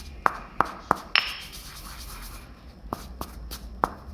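Stone pestle pounding toasted bread in a stone mortar (lesung batu): a run of sharp, irregular knocks, about a second and a half of quieter grinding in the middle, then more knocks.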